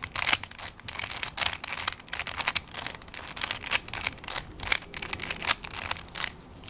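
Plastic puzzle cube being turned by hand: quick, irregular clicking and clattering of the layers as they are twisted, several turns a second, during the final moves of a solve.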